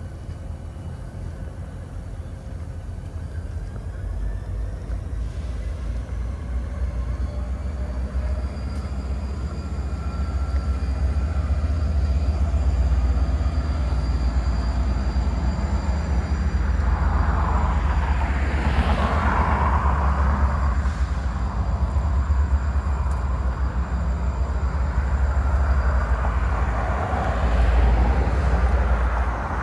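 Outdoor urban traffic noise: a steady low rumble with faint, slowly gliding engine tones, swelling as a vehicle passes about two-thirds of the way in.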